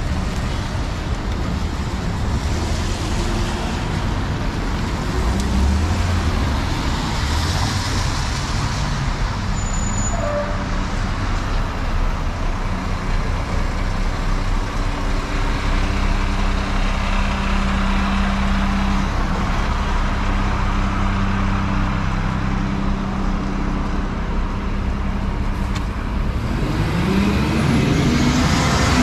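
Downtown street traffic on wet roads: cars and trucks passing and idling. About halfway through a heavy truck's engine runs steadily, and near the end a vehicle passes close by.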